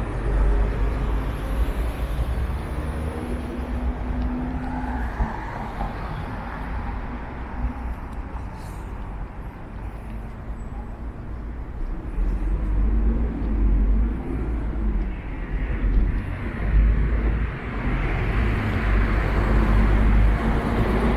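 Road traffic going by: a steady rumble and tyre hiss with faint engine hums, easing off about halfway through and building again toward the end.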